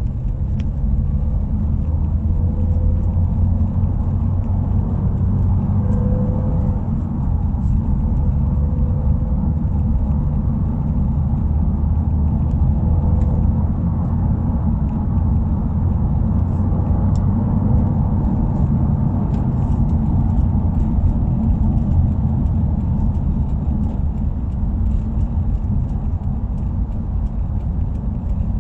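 Subaru WRX driving at a steady pace: a low, even rumble of engine, exhaust and road noise, with a faint wavering tone around the middle. The exhaust runs without the abnormal muffler noise, which has been fixed.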